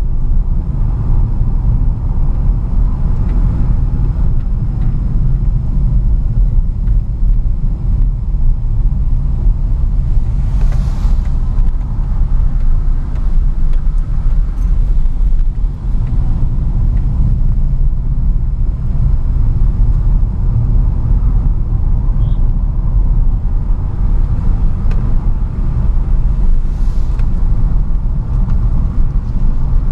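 A car's engine and tyre noise heard from inside the cabin while driving: a steady low rumble, with two brief rushing swells, about eleven seconds in and again near the end.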